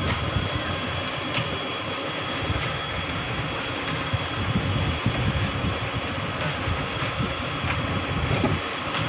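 Boat motor running steadily at low speed, a rough low rumble with a faint steady whine over it.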